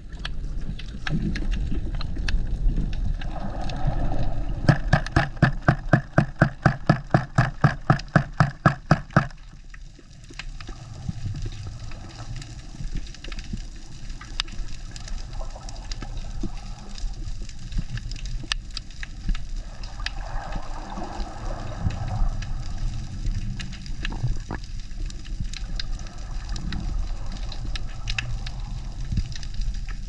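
Underwater sound on a diver's action camera: a steady wash of water with scattered sharp clicks and crackles. From about four to nine seconds in comes a loud run of even, rapid pulses, about three a second, which then stop abruptly.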